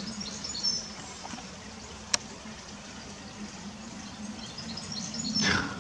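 Outdoor ambience with small birds chirping faintly in short high twitters near the start and again near the end, over a steady low background hum. A single sharp click comes about two seconds in, and a brief louder rushing sound just before the end.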